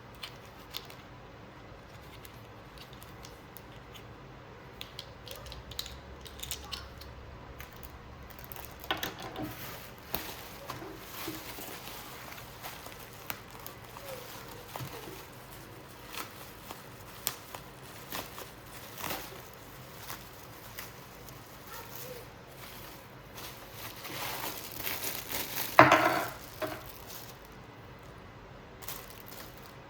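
Crinkling plastic packaging and light knocks and clicks as a stainless steel mixing bowl set is unpacked and handled, with a louder brief clatter near the end.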